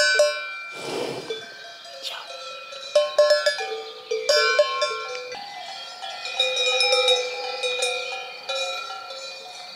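Several cowbells on grazing cattle clanking irregularly, their different pitches ringing on and overlapping.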